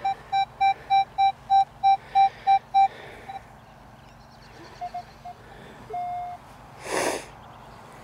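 Metal detector beeping at a dug target: a quick run of about ten identical mid-pitched beeps, roughly three a second, then a few short beeps and one longer held tone. A brief rush of noise about seven seconds in.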